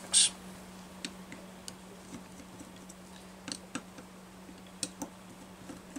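Small, scattered metallic clicks and ticks of a screwdriver working the screws on a Walbro HDA carburetor body, the sharpest click just after the start. A steady low hum runs underneath.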